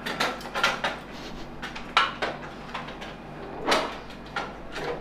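Irregular knocks and bumps from a wooden door and its frame being handled, about seven in a few seconds.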